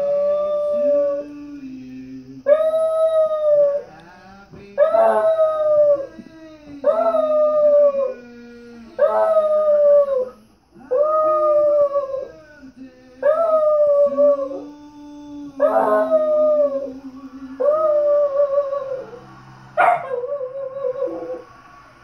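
Dachshund howling along to singing from a television: about ten long howls a couple of seconds apart, each rising quickly and then holding and sagging in pitch, with the TV singing fainter underneath.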